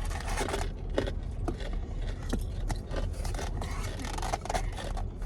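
Close-up eating and takeout-packaging sounds: crinkling and scraping of paper and containers with many short clicks and smacks, over a steady low rumble from the car.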